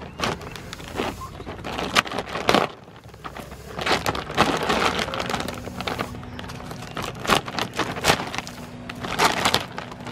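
Stitched top of a plastic feed bag being pulled open by its pull string: the seam and its paper tape tear away in a run of sharp crackles and snaps, with the bag rustling.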